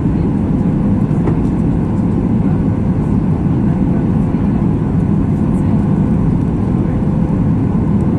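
Steady cabin noise of a Boeing 737 MAX 8 airliner: the deep rumble of its CFM LEAP-1B turbofan engines and rushing airflow, with a faint constant hum.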